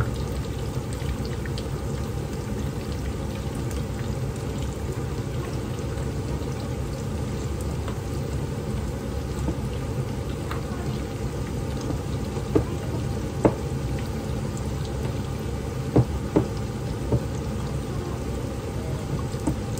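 Oil sizzling steadily around breaded Korean corn dogs on skewers shallow-frying in a pan. A few sharp pops come in the second half.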